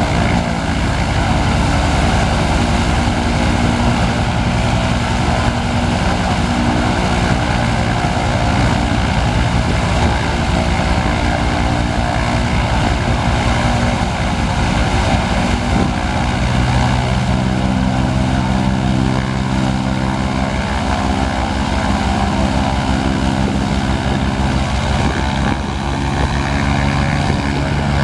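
Antonov An-2 biplane's nine-cylinder radial engine running on the ground at low power with its propeller turning; a steady engine note whose pitch shifts a little about halfway through and again near the end.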